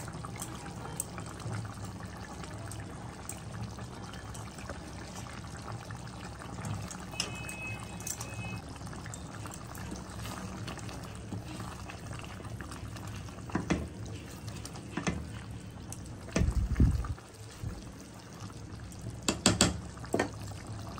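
Chicken gravy simmering in a kadai, a steady bubbling with a low hum under it. In the second half a spatula knocks and scrapes against the pan a few times, with one short low thump.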